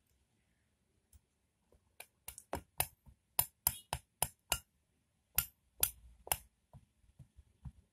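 A metal spoon clinking sharply against a container about a dozen times, in two quick runs, as sago starch is spooned in. A few fainter taps follow.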